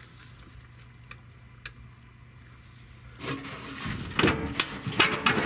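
A quiet steady low hum with a couple of faint clicks, then, about three seconds in, loud scraping and knocking as the Corvair's metal fuel tank is worked down out of its mounting.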